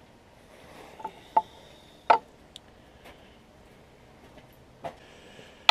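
Steel parallels and a toe clamp being handled and set in a milling vise: a few light, scattered metal clicks and taps, the sharpest about two seconds in.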